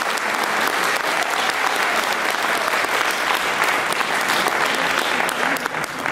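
Audience applauding steadily, the dense clapping of many hands.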